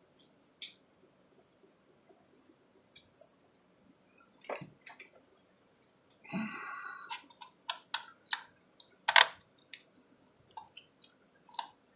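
Scattered clicks and light knocks of a small plastic camcorder being handled and turned over, ahead of taking it apart. The loudest knock comes about nine seconds in.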